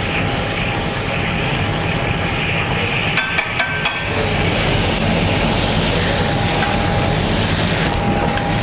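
Steady hum and hiss of a professional kitchen, with butter heating in a pan on a flat-top stove. About three seconds in, four quick sharp taps of a utensil against the pan.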